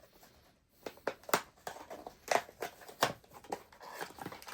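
A cardboard blind box being handled and opened by hand: a run of sharp clicks and taps, with rustling that builds near the end.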